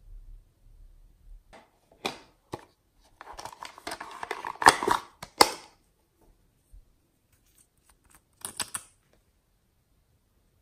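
Small cosmetic containers (a nail polish bottle and a lipstick tube) handled close to the microphone: a few sharp clicks, then a stretch of rustling with two loud clicks in the middle, and a short rustle near the end.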